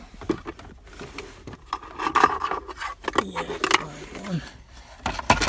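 Hands rummaging among loose plastic interior trim: rattling, scraping and scattered clicks, with a heavy bump near the end.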